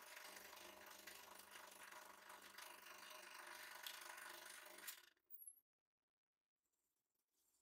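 Hydraulic press ram driving a blade down through a green plastic pipe: faint, steady mechanical running with a humming tone and a couple of sharp cracks, cutting off suddenly about five seconds in.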